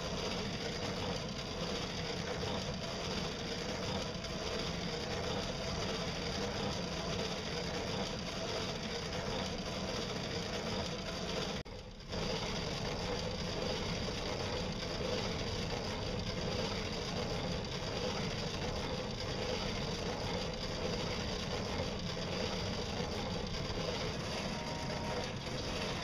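Steady mechanical running of a solar and pedal powered boat's drive while under way, even throughout, with a brief drop-out about halfway.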